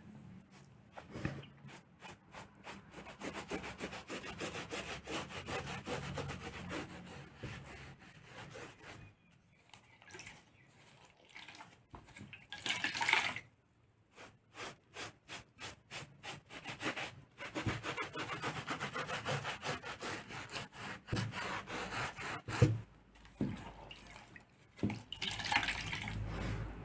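A wet sponge scrubbed back and forth over a filler-covered, textured cobblestone surface, wiping the excess filler off the tops of the cobbles. It comes in runs of rubbing strokes with short pauses, at one point a quick run of about three strokes a second.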